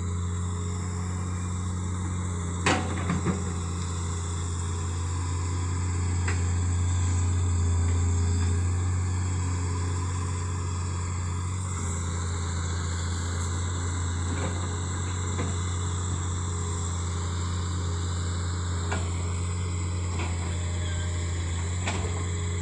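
Engine of a heavy work machine running steadily with a low drone, with a couple of sharp knocks about three seconds in. It runs normally after repair of water damage from a long submersion.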